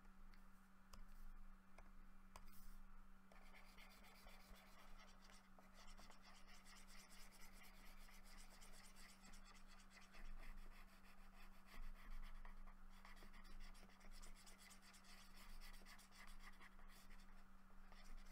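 Faint scratching of a pen stylus drawn over a graphics tablet in repeated strokes, with brief pauses, over a steady low electrical hum.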